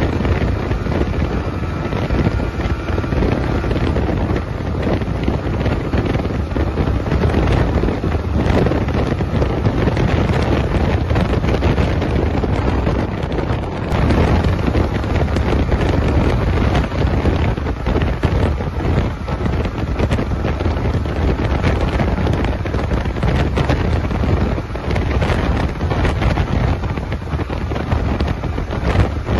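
Heavy wind rushing over the microphone of a Yamaha MT-15 motorcycle riding at speed, with its 155cc four-stroke engine running underneath.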